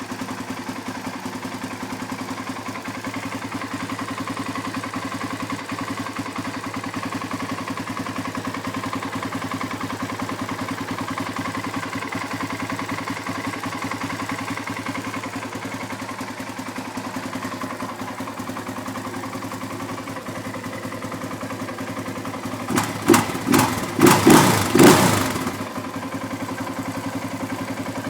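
Dinli 450 DMX quad's single-cylinder four-stroke engine idling steadily, then blipped sharply about five times in quick succession near the end before settling back to idle. The carburettor is fitted with two intake plenums and a home-made Dynojet jet kit.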